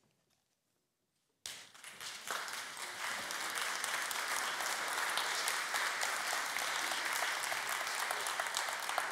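Congregation applauding. The clapping starts about a second and a half in, after a short quiet, then quickly builds and stays steady.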